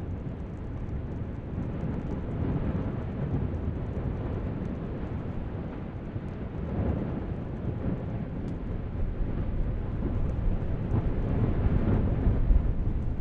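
Deep, continuous rumbling roar of an erupting volcanic vent fountaining lava, swelling and easing several times and growing louder toward the end.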